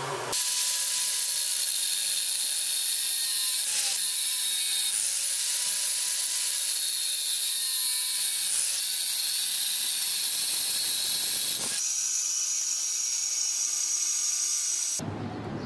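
Angle grinder with a thin cut-off disc cutting into a metal pipe: a loud, high hiss of disc on metal over the motor's steady whine, which dips briefly in pitch a few times as the disc is loaded. It starts just after the beginning and stops abruptly near the end.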